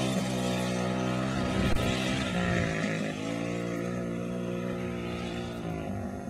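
Small dirt bike's engine running at a steady pitch, fading gradually as the bike rides away across the sand.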